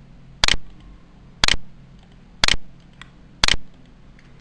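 Four sharp clicks, evenly spaced about a second apart, over a faint steady hum.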